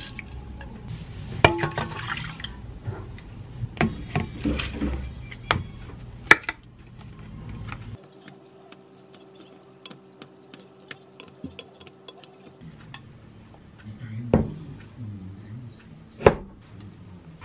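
Rinsed brown rice and water sloshing as they are poured into a stainless-steel rice-cooker pot, with clatters against the metal. Then quieter light ticking as the rice is stirred, and two sharp knocks of kitchenware near the end as the cooked rice is scooped out.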